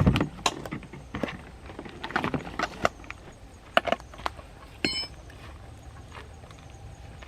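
Irregular knocks and cracks of wood, several in quick clusters, the loudest right at the start, dying away after about five seconds.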